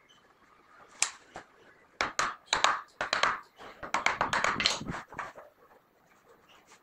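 Wood chisel pressed by hand through a thin wooden strip on a plywood board: a single knock about a second in, then a quick run of sharp cracks and knocks for about three seconds as the blade cuts the wood.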